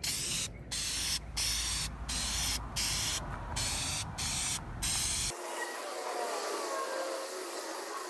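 Aerosol spray-paint can hissing in about eight short bursts as paint is sprayed onto a sheet-metal disc. About five seconds in, the bursts give way to a quieter, steady hiss.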